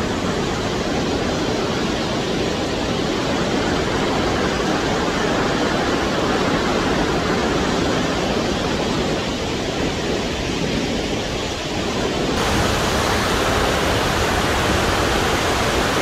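Burney Falls waterfall rushing into its pool: a loud, steady noise of falling water. About twelve seconds in it turns suddenly brighter and hissier as the shot changes.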